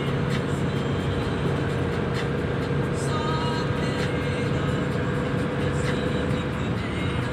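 Steady road and engine noise heard from inside a moving car, with a constant low hum and a steady whine.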